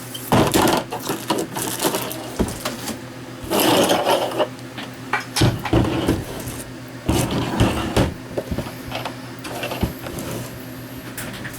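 Irregular clicks, knocks and rubbing as things are handled and moved about on a work surface, over a steady low hum.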